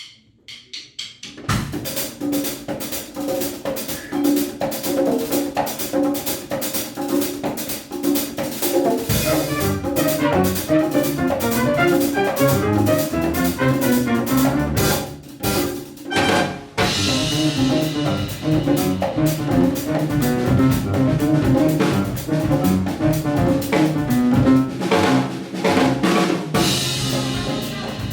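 A Latin jazz band playing Afro-Cuban music live: drum kit and hand percussion keep a dense, driving rhythm under piano, with a bass line coming in about a third of the way through. Near the middle the band breaks for a couple of accented hits, then comes back in with cymbals ringing.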